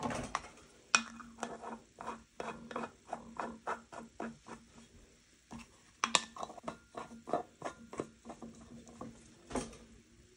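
Plastic screw-on lids being twisted onto two jars of milk: a quick series of small clicks as the threads turn, one run for the first jar and a second run for the other, with a single knock near the end.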